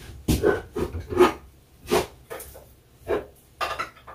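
A dog making a series of short vocal sounds, about eight brief ones spaced unevenly over four seconds.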